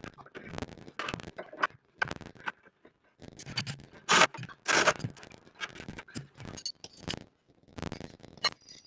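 Handling noises: irregular scrapes and knocks, the two loudest a little after four and five seconds in.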